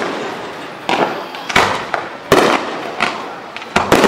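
Fireworks display: aerial shells bursting with sharp bangs, roughly one every second, each trailing off as it fades, with two bangs in quick succession near the end.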